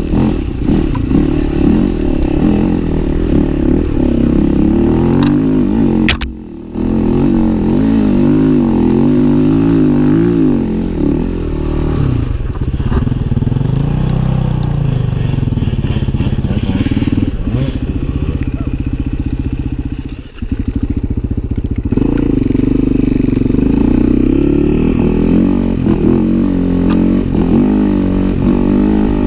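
Enduro dirt bike engine being ridden hard, its revs rising and falling constantly as the throttle is worked, heard from the rider's helmet. The engine sound drops briefly twice, about six seconds in and again about twenty seconds in.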